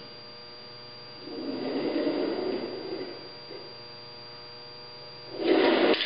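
Dynamics cart rolling along a lab track with a low rumble for about a second and a half, starting about a second in, over a steady mains hum. A louder burst of noise comes near the end.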